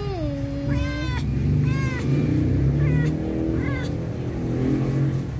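Newborn kitten mewing: short, high, arching cries about once a second, with a lower, longer falling call at the start. A steady low hum runs underneath.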